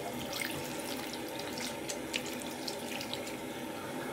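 Bathroom sink tap running while hands are washed under the stream, with small splashes throughout.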